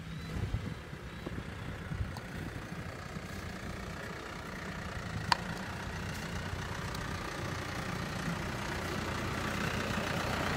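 A low engine idling steadily, with a vehicle engine growing steadily louder over the last several seconds as a tractor fitted with a front snow blade draws near. A single sharp click sounds about halfway through.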